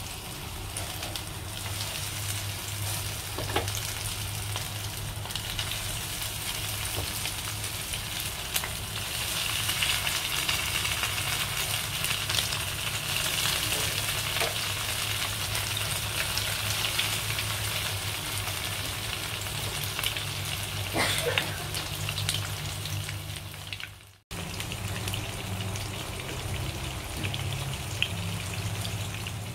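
Rice-flour-coated barramundi pieces frying in hot oil in a pan: a steady sizzle, with a brief gap near the end.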